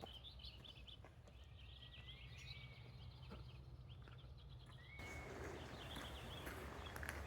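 Faint birdsong from the surrounding forest: quick chirps and trills with a long whistled note about two seconds in, over a low steady rumble. About five seconds in, a steady hiss comes up beneath the birds.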